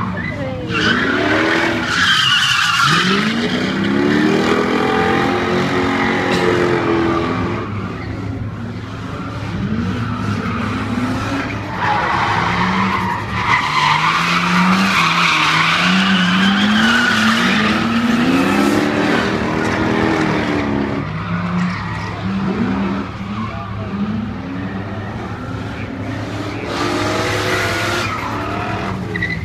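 A Toyota Altezza and a Nissan Skyline R32 drifting. Their engines rev up and down again and again while the tyres squeal and skid.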